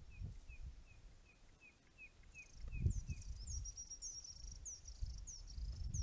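Wild birds calling: a run of short, down-slurred whistles, two or three a second, that stops about halfway. From about 2 seconds in, a second, much higher-pitched bird takes up a run of quick down-slurred notes over a steady high trill. Under the calls a low rumble swells from about halfway, with its loudest thump just under 3 seconds in.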